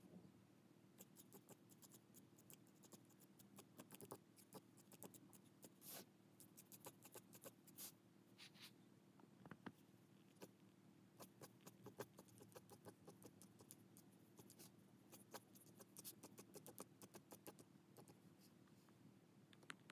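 Fine-tipped pen scratching on paper in quick, short hatching strokes, several a second at an uneven pace, over a faint steady hum.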